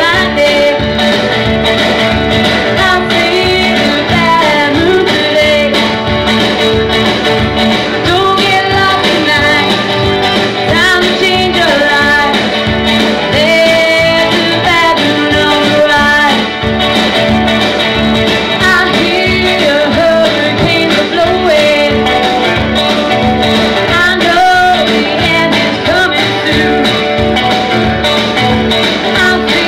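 A woman singing a solo into a handheld microphone over backing music with guitar.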